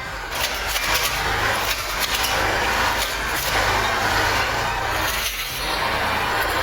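A machine's engine running steadily, with irregular clattering and knocking on top.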